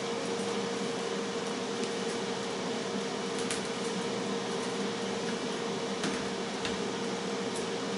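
Tristar FR-6989 air fryer running mid-cook: a steady fan whoosh with a constant hum, and a few faint clicks over it.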